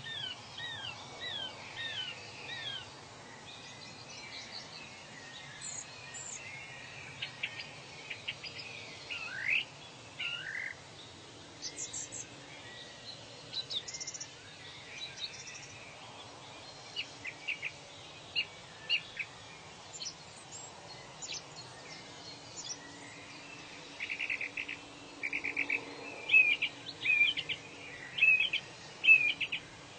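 Wild birds singing: bursts of short downward chirps, a few rising whistles about nine seconds in, and quick runs of repeated notes near the end, over a steady faint background hiss.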